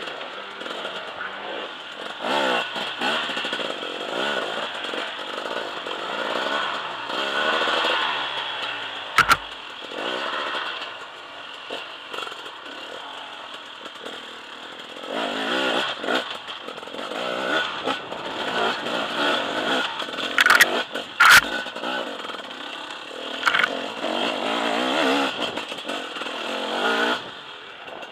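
KTM enduro motorcycle engine revving up and down as the bike is ridden over a rocky trail, with a few sharp knocks, one about a third of the way in and two close together past the middle.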